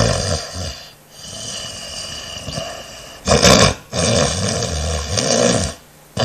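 Heavy snoring by a young woman (rhonchopathy): a run of loud snores, one on each breath, the strongest about three seconds in, with a brief lull just before the end.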